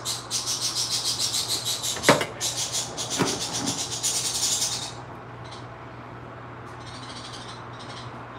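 A glass pot lid on a steaming pot: a fast rhythmic hissy rattle, about six or seven pulses a second, for roughly five seconds, with two sharp clinks of the lid as it is handled, then the rattle stops. A low steady hum runs underneath.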